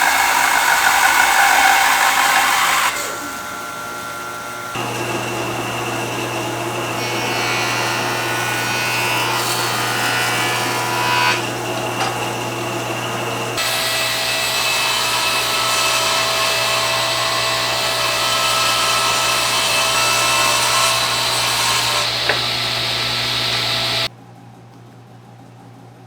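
Sandpaper rubbing on a spinning wooden plate on a small Rikon wood lathe, over the steady hum of the lathe's motor, in several segments that change abruptly. The sound cuts off about two seconds before the end, leaving only a faint steady hiss.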